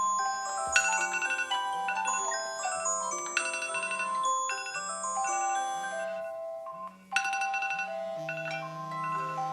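Smartphone alarm tone: a bright melody of marimba- and glockenspiel-like notes over an evenly pulsing low note. It cuts out briefly about seven seconds in, then starts again.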